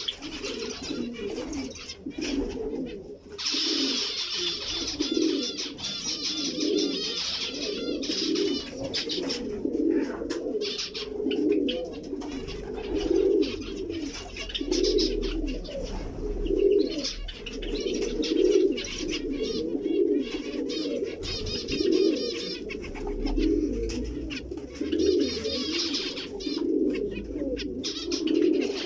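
Doves or pigeons cooing over and over, about one coo a second, with zebra finches chirping in quick, higher-pitched runs above them.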